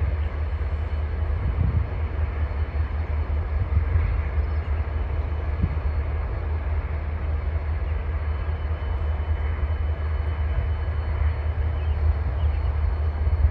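BNSF diesel locomotives running light at slow speed, their engines giving a steady low rumble with a faint high tone above it.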